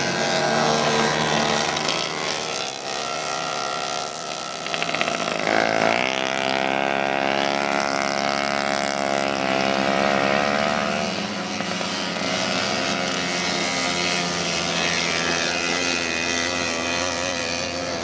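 Several single-speed two-stroke moped engines racing at high revs. About six seconds in, one comes close with its pitch climbing, holds high for a few seconds, then fades back into the others.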